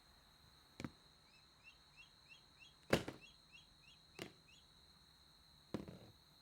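Four sharp knocks, the loudest about three seconds in, with a run of short rising chirps in the middle and a faint steady high-pitched whine underneath.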